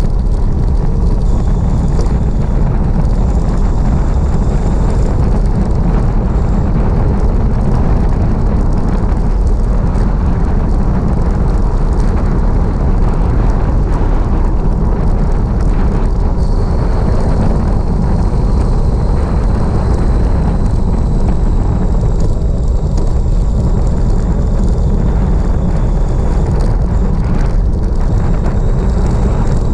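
Wind rushing over the microphone of a bicycle-mounted camera on a fast downhill run: a loud, steady low rumble.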